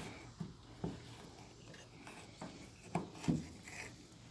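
Fillet knife scraping and cutting against a cutting board while skinning a bass fillet, with a few short taps, two of them close together about three seconds in.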